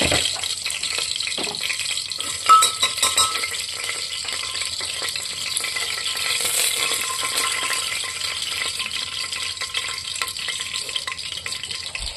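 Hot oil sizzling steadily in an open aluminium pressure cooker, with a bay leaf frying in it as the spices are tempered. A few metal clinks of a steel spoon against the pot come about two to three seconds in.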